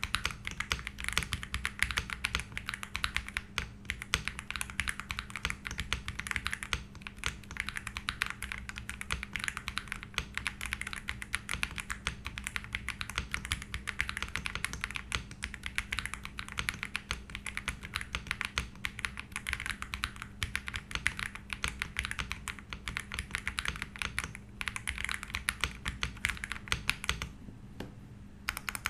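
Typing sound test on a Xinmeng M71 full-aluminium mechanical keyboard: a dense, continuous stream of keystroke clacks from fast typing, with a short pause about a second before the end.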